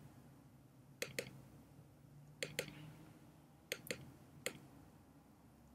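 Computer mouse clicking: three quick double-clicks and one single click, sharp and faint, as lines are selected and removed on a chart.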